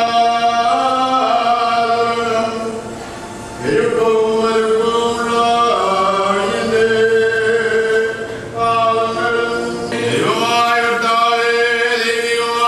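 A choir singing a slow, unaccompanied liturgical chant, with long held notes in phrases that break off and begin again every few seconds.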